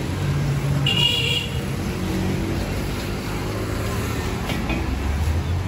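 Street traffic noise: a steady low rumble of vehicle engines, with a brief high-pitched tone about a second in and a few light clicks near the end.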